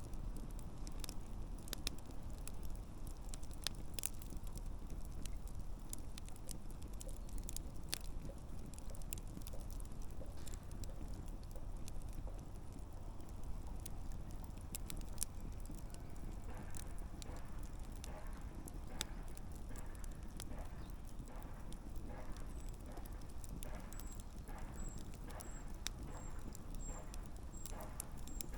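Wood campfire burning with a steady low rumble and sharp crackles and pops. In the second half a quicker run of small ticks sets in.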